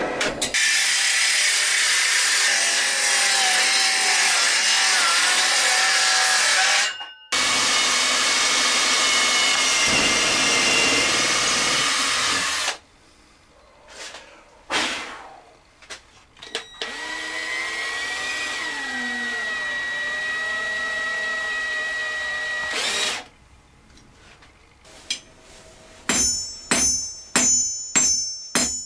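A power drill boring into metal and then into wood in several separate cuts, each a loud grinding whir; one cut carries a steady high whine. Near the end, metal strikes ring out about twice a second, like a hammer on an anvil.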